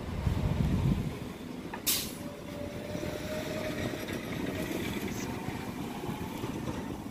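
A CNG city bus running at idle, with a steady low rumble that is louder in the first second. About two seconds in there is one short, sharp hiss of air.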